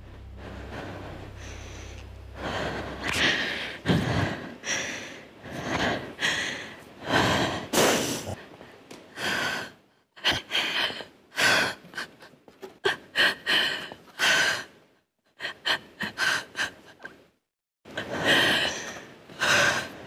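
A woman breathing hard in ragged, uneven gasps, with a few short silent pauses between them.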